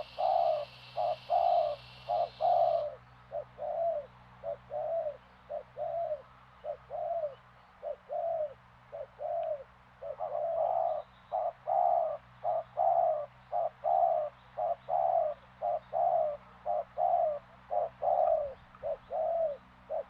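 Spotted dove (tekukur) cooing: a long run of short, low coos, about two a second, in repeated phrases.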